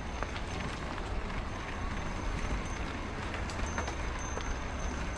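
Electric mountain bike riding along a dirt trail: steady tyre and rolling noise with scattered small ticks and rattles, and wind rumbling on the microphone.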